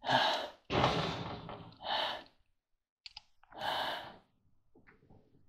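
A tired man sighing and breathing out heavily four times, the breaths coming about a second apart, with a couple of faint clicks about three seconds in.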